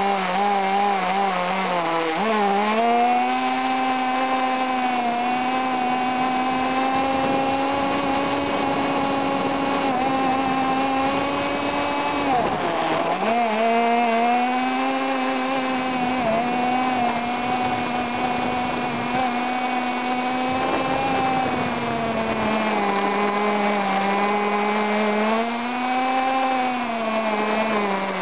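Radio-controlled car's small motor running at high revs, heard close up from a camera mounted on the car. The pitch steps up about two seconds in, drops sharply and recovers about halfway through, and sags and climbs again a few times near the end as the throttle changes.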